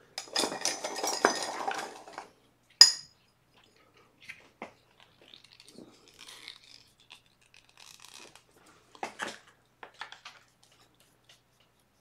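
Painting tools clattering and clinking against a hard container for about two seconds, then one sharp, ringing clink, followed by faint scattered taps and rustles.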